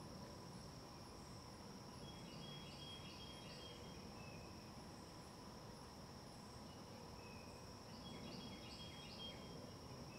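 Faint outdoor ambience of a steady, high insect drone, with two short runs of chirping calls, about two seconds in and again near the end.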